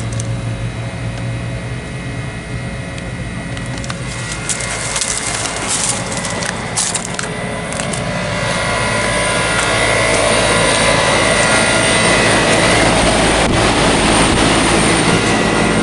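Residential heat pump outdoor unit running in heat mode: a steady compressor hum with a fixed whine under the rush of the condenser fan, growing louder about eight seconds in. Scattered crunching clicks sound between about four and eight seconds in.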